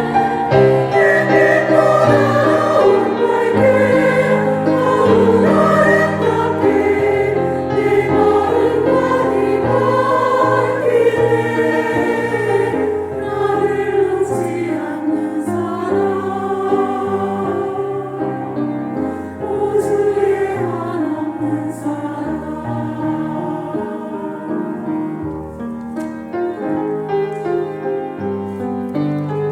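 A church choir singing a slow worship song, its sustained chords moving step by step and growing a little softer toward the end.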